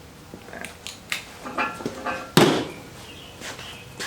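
Wrenches and metal engine parts clinking and clanking during an engine teardown: a few separate knocks, one with a short metallic ring, and a louder clank about two and a half seconds in.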